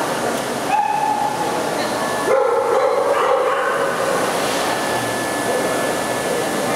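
A dog gives a short high call about a second in, then a longer wavering whine-howl about a second later, over steady background noise in a large hall.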